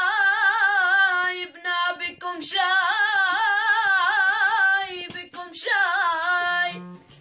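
Boys' high voices singing an Arabic qasida, three long held phrases with wavering, ornamented pitch and short breaks between them.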